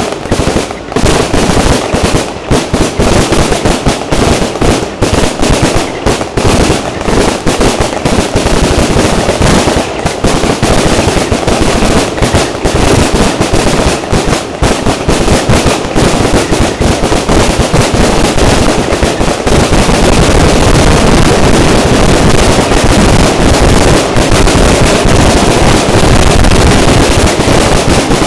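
Aerial fireworks going off in a dense barrage of loud bangs and crackles in quick succession. In the last third the shots come so fast they merge into a near-continuous din, like a finale.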